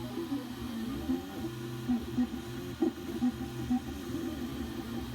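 Prusa i3 MK2 3D printer printing: its stepper motors whine in short tones that keep jumping in pitch as the print head and bed move.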